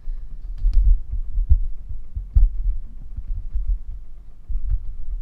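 Handling noise: irregular low thumps and rumbling, with a few light clicks, as the tool and recording device are moved about.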